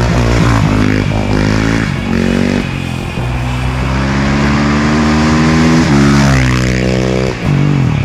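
Suzuki RM-Z450 supermoto's single-cylinder four-stroke engine with an Akrapovic exhaust, accelerating hard through the gears. The engine note climbs and drops back at each upshift: several quick shifts, then a long steady pull, then another shift near the end.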